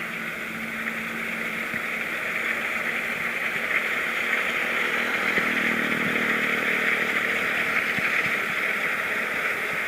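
Kubota DC60 combine harvester running steadily, a bit noisy, with a constant engine hum and a band of mechanical hiss.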